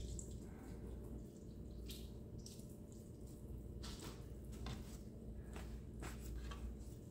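Faint wet squishing and paper-towel rustling as raw fish fillets are pressed in paper towels to squeeze out excess water, with a few short soft handling noises.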